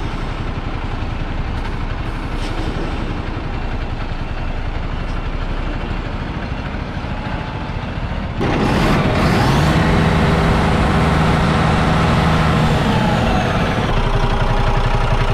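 2017 Ford Cargo 3535M mixer truck's Ecotorq diesel engine idling steadily. A little over eight seconds in it suddenly gets louder and closer. It then revs up, holds a higher speed for a few seconds, and drops back toward idle near the end.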